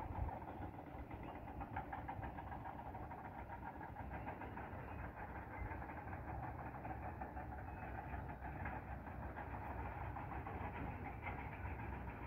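A vehicle engine idling steadily, with a fast, even pulsing rumble.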